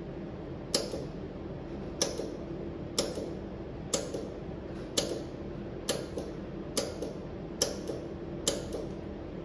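Benchtop pulsed jewelry laser welder firing single shots to spot-weld two metal rings together: a sharp snapping click about once a second, nine in all, a few followed by a fainter second click, over a steady machine hum.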